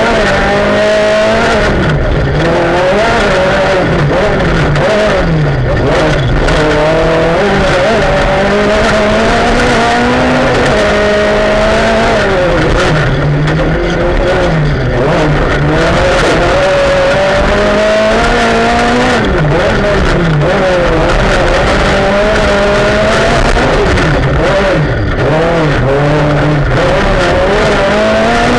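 Rally car engine heard from inside the cabin at full stage pace, its revs climbing and dropping over and over with gear changes and lifts. Constant gravel and road noise runs underneath.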